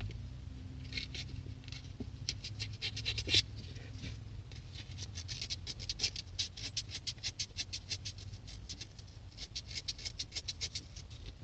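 Rapid scrubbing strokes on a car horn-button part, about five a second, in several runs with short pauses, working off decades of built-up crud. There is a sharper click about three and a half seconds in.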